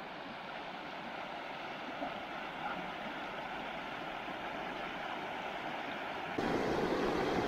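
Steady rushing noise of flowing river water, stepping up abruptly louder about six seconds in.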